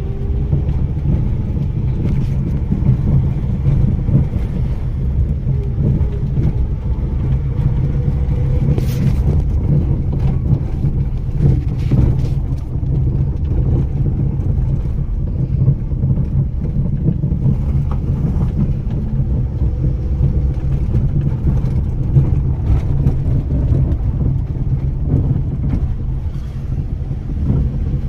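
A 2018 Wagon R car running with a steady low rumble and a few short knocks. The owner suspects the noise comes from the suspension, the steering or the brake caliper pins.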